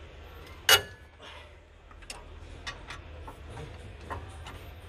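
Socket wrench working loose the bolts of a car's front brake caliper. One loud ringing metal clink comes about three-quarters of a second in, followed by a string of lighter, irregular metal clicks.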